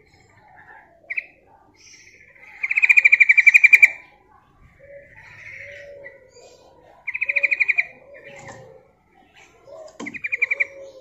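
Yellow-vented bulbul (trucukan) calling: three rapid chattering trills, the first about a second and a half long and the loudest, with softer lower warbling notes between them. The call is offered as a female's call to a male.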